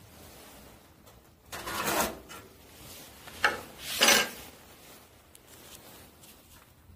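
Metal oven-compartment door and latch of a wood-burning camping stove scraping as it is opened and shut: a longer rasping scrape about one and a half seconds in, then two shorter scrapes near the middle.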